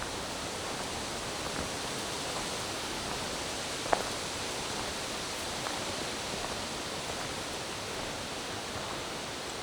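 Steady forest ambience: an even rushing hiss with a few brief sharp snaps or ticks, the loudest about four seconds in.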